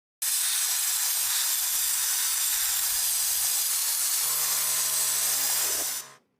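A loud, steady spraying hiss of air that cuts in and stops abruptly, with a low hum joining it about four seconds in.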